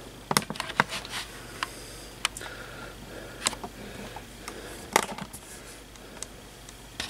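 Handling noise: irregular light clicks and taps, a dozen or so scattered through, over a faint steady low hum.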